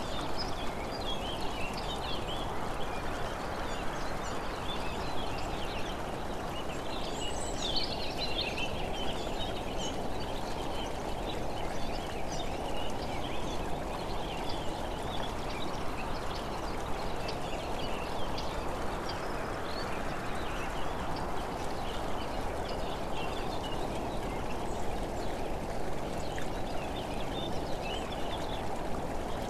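Steady rush of wind and road noise on a moving camera, with birds chirping now and then, most plainly near the start and about seven seconds in.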